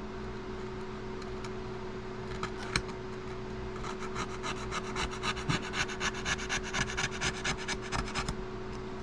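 Scraping old rubbery adhesive off a cell phone's frame with a hand tool: scattered scrapes at first, then rapid repeated strokes, several a second, from about four seconds in. A steady low hum runs underneath.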